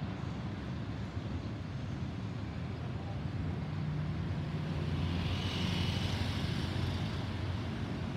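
Jet engines of a Boeing 737-800 (CFM56-7B turbofans) passing overhead: a steady low rumble, with a high whine that grows a little louder about five seconds in and fades near the end.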